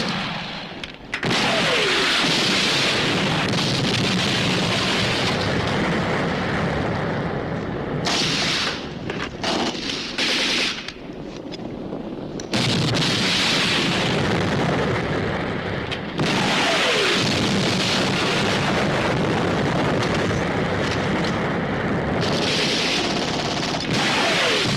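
Battle sound effects from a war film: sustained heavy gunfire and explosions, with a few falling whistles. The din thins out and breaks up for a few seconds in the middle, then resumes at full strength.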